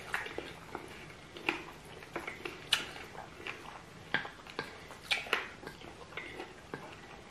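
Close-miked eating sounds from people eating chicken feet in egusi stew with rice: irregular wet chewing, sucking and lip smacks, with a wooden spoon scraping a plate. Several sharper smacks stand out about a third of the way in and again past the middle.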